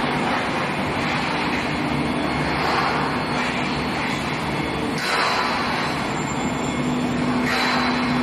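Steady industrial machinery din from an oil drill pipe induction heating line, a continuous rushing noise with a faint low hum, shifting slightly about five seconds in.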